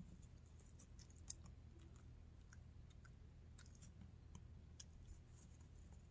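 Near silence: quiet room tone with faint, scattered small clicks.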